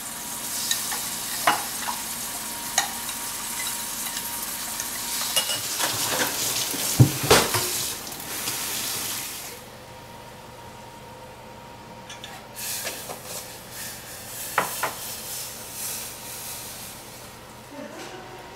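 Food sizzling in a hot frying pan, with utensils clinking and scraping against it. About nine and a half seconds in, the sizzling stops, and a few scattered knocks and clinks of pots and spoons follow.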